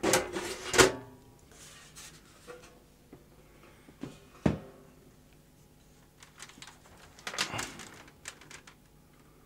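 Handling noise from an opened VHS video recorder: knocks and clunks as the sheet-metal top cover comes off and the machine is moved, with two sharp knocks at the start, a single thud about halfway, and a rustling scrape with small clicks near the end.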